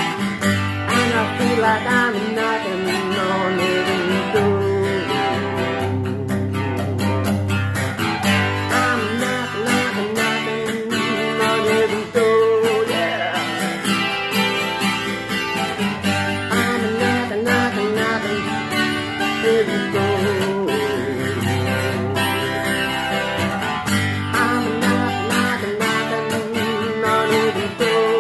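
Acoustic guitar strummed steadily in chords, with a man's voice singing along in stretches.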